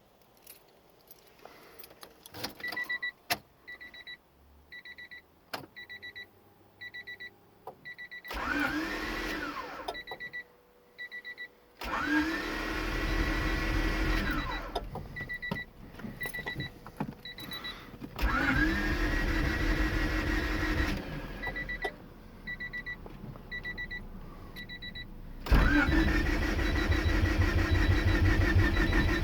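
Swapped H22A engine in a Honda Civic being cranked on the starter motor four times, two to four seconds each, with an even rapid churning and a rising whine as the starter spins up, never catching: a crank-no-start. Between attempts a car's warning chime beeps steadily, about twice a second, and there are a few clicks at the start.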